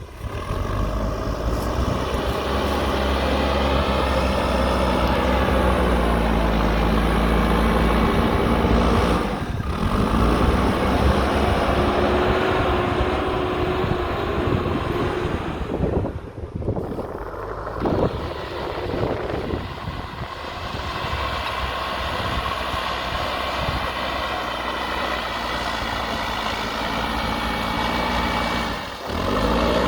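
JCB backhoe loader's diesel engine running and revving as the machine works, its pitch rising and falling, with a few brief drops in level.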